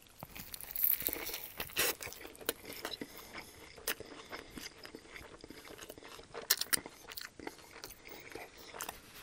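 Close-miked biting and chewing of a panko-crusted fried chicken and bacon sandwich on a toasted bun: crisp crunches, strongest about one and two seconds in, then crunching chews and mouth clicks.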